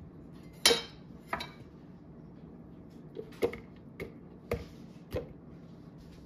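Chunks of pineapple dropped into a blender cup one at a time, making a series of short, separate knocks spaced irregularly, the first one the loudest.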